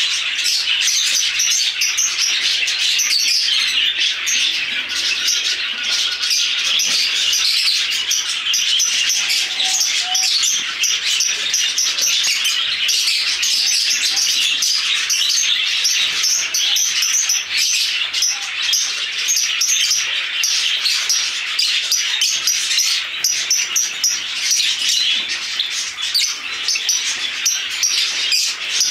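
Many caged birds chirping and chattering at once in a dense, unbroken din of high calls, with no pause.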